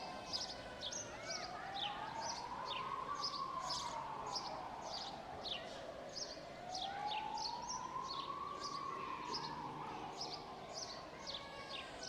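An emergency vehicle siren wailing, rising and falling slowly about every five and a half seconds, while small birds chirp many short, quick notes throughout.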